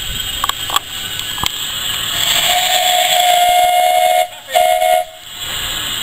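Steam whistle of a small steam tank locomotive: one long blast of nearly two seconds, then a short blast, over hissing steam. A few light knocks in the first second and a half.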